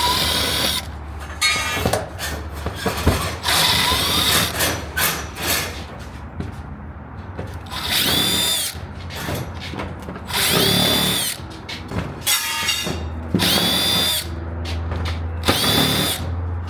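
Power drill run in several short trigger pulls, its motor spinning up in pitch each time, backing screws out of the shade structure's sheeting.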